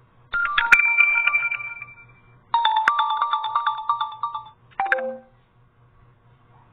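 OPPO A12e phone playing its ringtone and notification tones one after another, each a short melodic chime that stops after a second or two. One starts about a third of a second in, another at about two and a half seconds, and a brief one comes near five seconds, followed by quiet.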